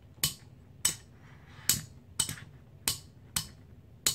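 Armaspec ambidextrous AR-15 safety selector being flipped back and forth by thumb, snapping into its detent positions: a series of sharp clicks, about one every half second.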